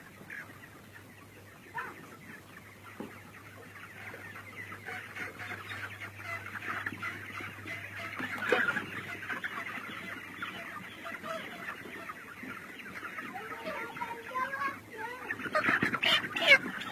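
A flock of chickens clucking and chirping together, many overlapping calls that grow louder, with more distinct calls near the end.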